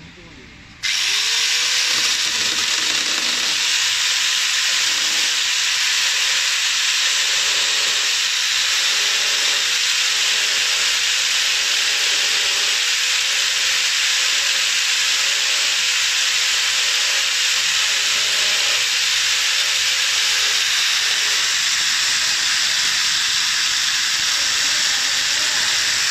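Electric angle grinder fitted with a chainsaw bar and chain, switched on about a second in: the motor spins up with a quickly rising whine, then runs steadily at full speed with a loud hissing chain noise.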